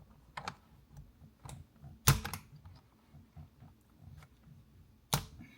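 Flathead screwdriver prying at the release pin behind a steering-wheel airbag: scattered small clicks and knocks of metal and plastic, with a sharp snap about two seconds in and two more near the end as the airbag works loose.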